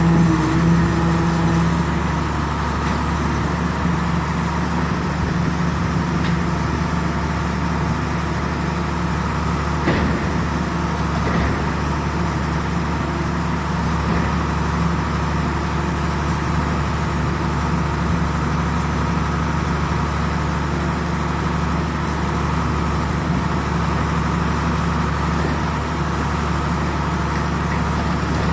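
Power unit of a trailer-mounted RB 5000 dual-ram baler running steadily. A higher tone drops out about two seconds in, and there is a short knock about ten seconds in.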